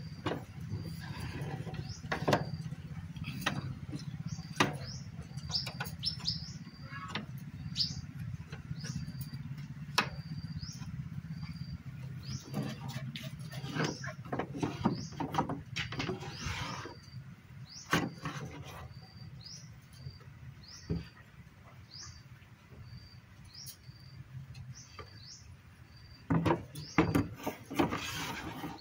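A small bird chirping over and over, short high notes about once a second, while the wooden sliding panels and doors of a multi-compartment bird cage are handled with sharp clicks and knocks, a cluster of them near the end.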